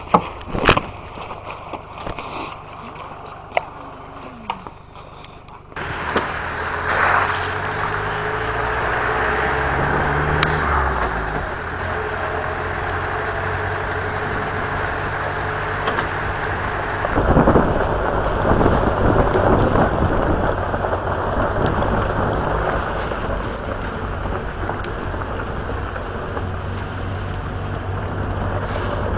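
Knocks and handling clatter at first. About six seconds in, a car's engine and road noise come in, rising in pitch as it accelerates, then settling into steady driving with engine rumble and tyre noise.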